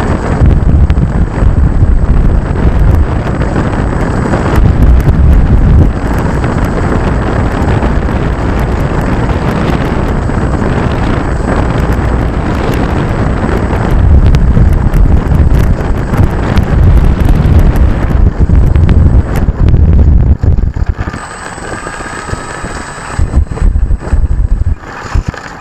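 Wind buffeting a small onboard camera's microphone, a loud low rumble that comes in gusts. About 21 seconds in it drops away, leaving a faint wavering whine.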